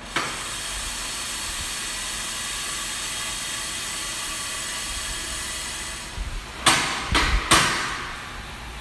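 Drum coffee roaster letting off a sudden, steady hiss of escaping air that runs about six seconds and stops, followed by three loud knocks in quick succession near the end.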